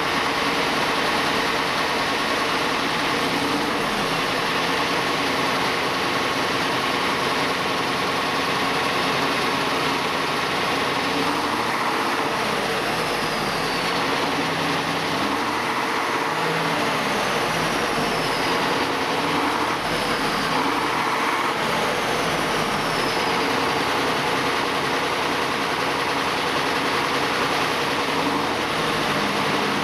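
Kharkov T-150K tractor's 9.15-litre V6 diesel running after startup. Its revs rise and fall several times through the middle, each drop trailed by a faint falling whistle from the large turbocharger running down.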